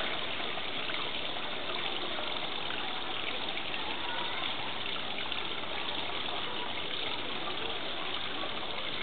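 Steady rushing noise of running water, unchanging throughout.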